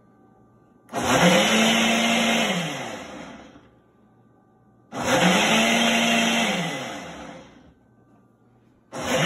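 Ninja countertop blender pulsed three times on a fruit smoothie: each time the motor spins up quickly, runs for about a second and a half, then winds down over a second or two, and the third pulse starts near the end. These are short finishing pulses on an already blended smoothie.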